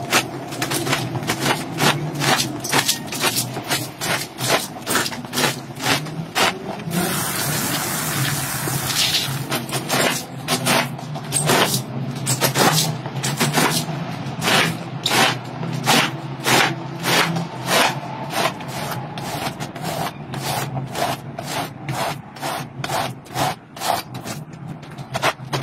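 Long-handled scrub brush scrubbing a wet, soapy rug in repeated back-and-forth strokes, about two a second. A steady hiss cuts in for about two seconds partway through.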